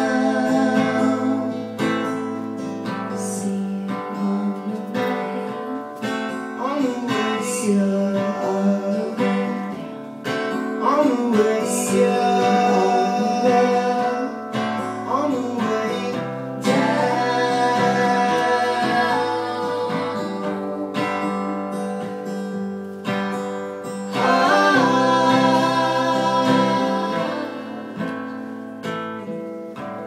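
Live music: the closing instrumental stretch of a song on guitar, with some singing, dying away near the end.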